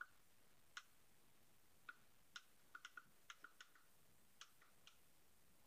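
Near silence broken by about a dozen faint, sharp clicks at irregular intervals, bunched together in the middle.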